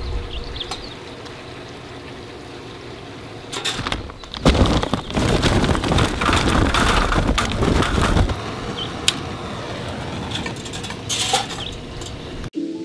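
Charcoal briquettes poured from their bag into a metal chimney starter: a dense clattering rattle mixed with the bag crinkling, lasting about four seconds in the middle, followed by a few single clicks. Music cuts in at the very end.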